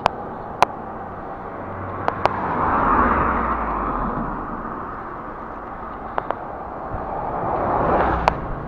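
Oncoming road traffic passing close by: a pickup swells past about three seconds in and a bus about eight seconds in, over steady road and wind noise. A few sharp clicks come through between them.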